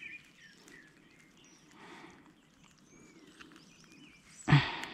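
Birds chirping faintly over quiet outdoor ambience, with one sudden loud thump about four and a half seconds in.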